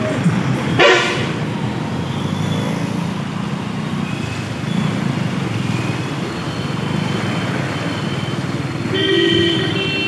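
Steady motorcycle and street traffic noise while riding through a flooded street. A vehicle horn sounds briefly about a second in, and another toots near the end.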